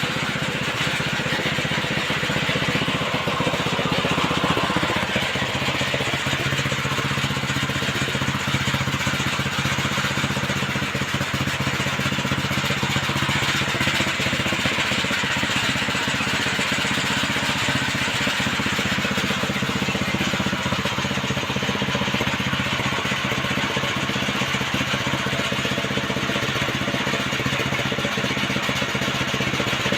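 Rice threshing machine running steadily, its engine holding a constant speed.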